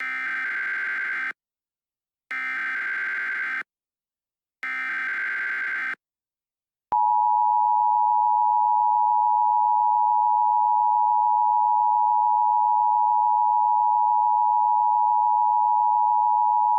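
Emergency Alert System tones: three short bursts of SAME header data, a harsh warbling digital buzz about a second and a half each with a second's pause between them. About seven seconds in, the steady two-tone EAS attention signal (853 and 960 Hz) begins and holds loudly for about ten seconds.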